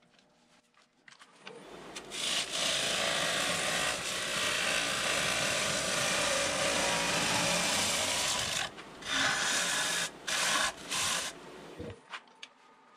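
A turning tool cutting the inside of a green (wet) butternut square bowl spinning on a wood lathe. It starts about two seconds in, runs as one long steady cut, then breaks into a few short cuts before stopping near the end.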